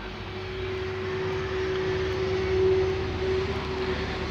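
Steady mechanical drone with a constant hum, growing a little louder toward the middle and then easing off slightly.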